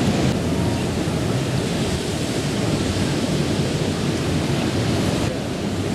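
Ocean surf washing on the beach, mixed with wind rumbling on the microphone: a steady, loud rushing noise.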